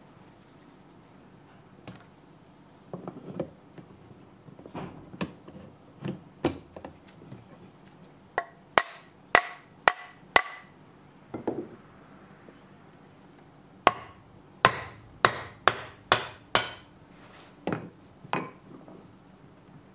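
Hammer tapping a steel plane blade into and out of its wooden Japanese plane block (kanna dai) while test-fitting it: irregular sharp knocks, the loudest with a bright metallic ring, coming in two quick runs of four or five strikes about a third and two-thirds of the way through. The oiled blade marks the high spots in the block's blade bed that still need paring.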